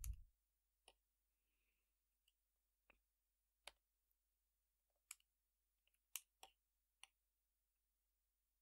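A few faint, isolated keystrokes on a computer keyboard, about eight separate clicks spaced irregularly a second or so apart, over near silence.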